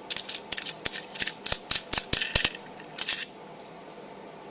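A hand tool working the rail mount screw out of an airsoft EOTech clone sight: a quick, irregular run of small metallic clicks and scrapes, ending with a last cluster about three seconds in.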